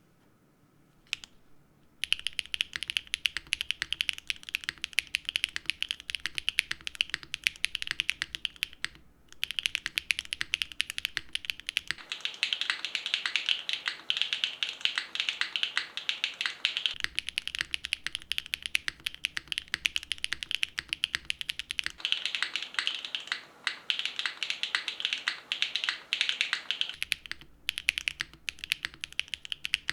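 Neo75 CU mechanical keyboard with a copper bottom case and linear switches being typed on quickly and continuously: a dense stream of key clacks. The typing starts about two seconds in and breaks off briefly about a third of the way through.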